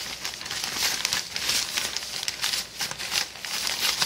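Clear plastic bag of flour batter mix crinkling and rustling in irregular bursts as it is shaken and handled.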